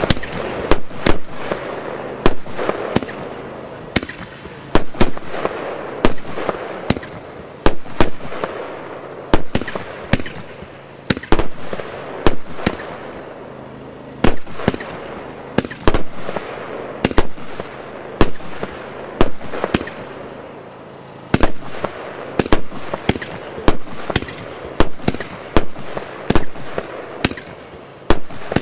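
Wolff Artillery 120-shot fireworks cake firing: a fast run of sharp shots and bangs from its aerial bursts, bunched in uneven clusters of several a second, with a haze of noise between them.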